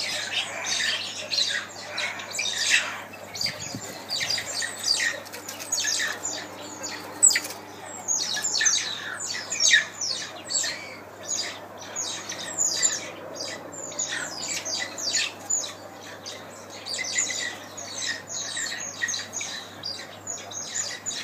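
A group of mongooses giving many short, shrill, squawking calls in rapid overlapping succession, the calling of a territorial fight between mongoose groups.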